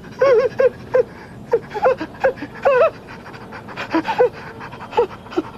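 A man panting and whimpering in fright: short, high, wavering cries and gasps in quick succession, a few a second.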